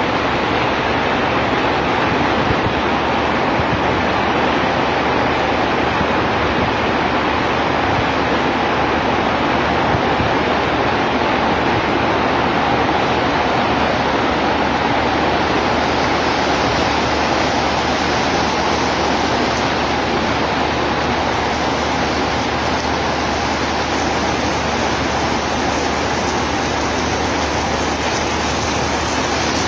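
Heavy rain pouring down in a loud, steady downpour.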